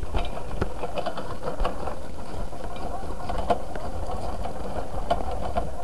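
Moped being pushed along a rough driveway in a bid to start it, its engine turning over without catching: a steady rattle with irregular clicks and knocks.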